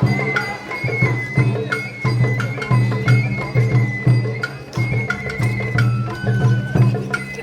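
Japanese festival hayashi music: a bamboo flute playing a high held melody that steps between notes, over regular taiko drum strokes and low sustained tones.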